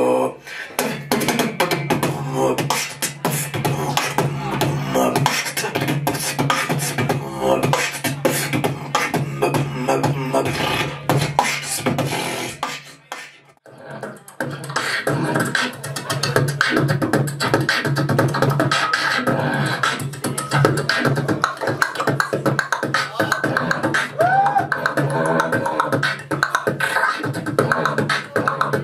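Live beatboxing into a handheld microphone: fast percussive clicks and drum hits over a steady low hum. It drops out briefly about halfway through, then a second beatboxer starts a new routine.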